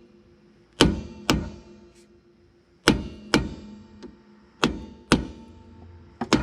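Hammer blows on a rusted wheel hub, about eight metallic strikes, mostly in pairs half a second apart, each ringing briefly. The hub is being struck all around to break up the rust so the seized hub assembly will come off.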